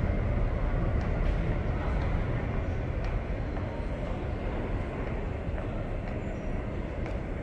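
AirTrain JFK, the airport's elevated people-mover train, running along its guideway, a steady low rumble that slowly fades.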